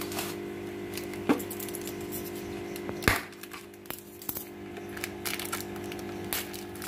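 Hands handling a wet plastic fish bag in a plastic tub of water: soft rustling, with two sharp clicks, one about a second in and a louder one about three seconds in. A steady low hum sits underneath.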